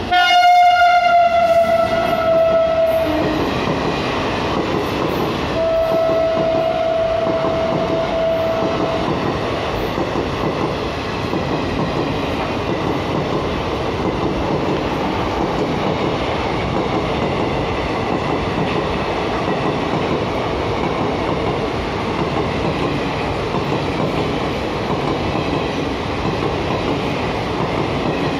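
WAP-7 electric locomotive sounding its horn in two blasts of about three seconds each, a couple of seconds apart; the first falls slightly in pitch as the locomotive passes. After that comes the steady rolling noise of the express's passenger coaches running past.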